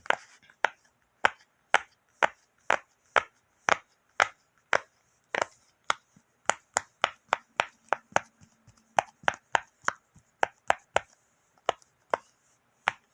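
Silicone keyboard-shaped pop-it fidget toy, its bubbles pressed one after another, each giving a sharp pop, about two or three a second with a few short pauses.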